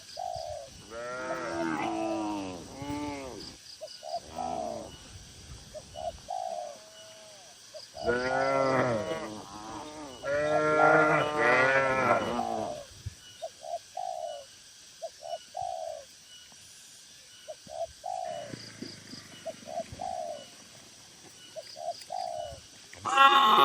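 Cattle mooing: a run of calls early on, then a longer, louder run in the middle, with quieter gaps between. Through the quieter parts, short soft calls from a bird repeat again and again.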